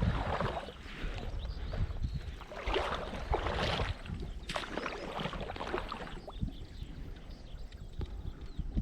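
Water splashing and sloshing in a river in irregular bursts, over a steady low rumble.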